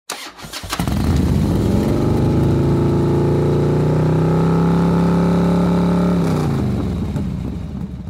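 Motorcycle engine sound effect: it starts up with a few clicks, rises in pitch, runs steadily, then winds down in pitch near the end.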